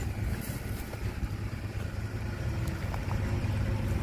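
Diesel engine of a Caterpillar hydraulic excavator running steadily as a low rumble.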